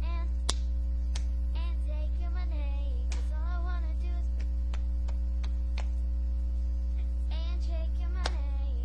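A girl singing in short phrases over a loud, steady electrical mains hum, with faint clicks at a regular pace about every two-thirds of a second.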